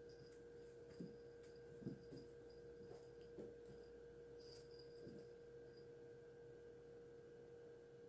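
Near silence: a faint steady electrical hum fills the room, with a few soft thumps and rustles from a cat playing on a rug, the clearest about 1 and 2 seconds in.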